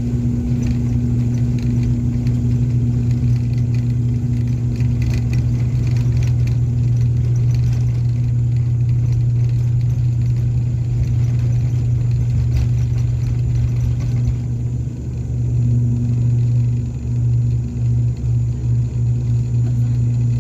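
Aircraft engines at takeoff power: a loud, steady low drone with a strong hum under it and some rattling in the first half. About two-thirds in the hiss above the drone drops away, and near the end the drone wavers.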